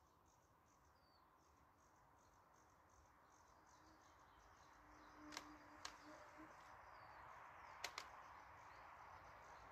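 Near silence: faint open-air ambience with soft high chirping, probably insects or a distant bird, and a few faint sharp clicks, two a little past halfway and a close pair near the end.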